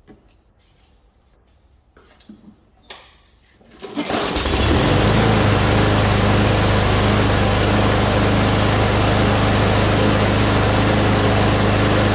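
Briggs & Stratton push-mower engine, freshly fitted with a rebuilt plastic carburetor, being test-started: a few light knocks, then about four seconds in the engine starts and runs steadily, showing the carburetor repair has cured the no-start.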